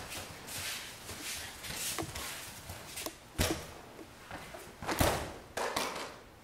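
Judoka's bodies and bare feet hitting tatami mats, with judo gi rustling and feet shuffling, as a jumping juji-gatame (flying armbar) is thrown. There are several thuds, the heaviest about five seconds in as both land on the mat.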